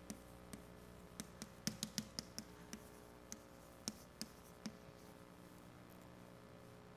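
Chalk tapping and scraping on a blackboard as an equation is written: a series of short, sharp, irregular taps, bunched together about two seconds in and thinning out near the end. A faint steady room hum lies underneath.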